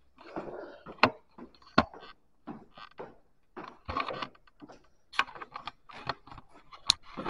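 Footsteps and shoe scuffs going down a stairwell's stairs, uneven and irregular, with a few sharp clicks among them.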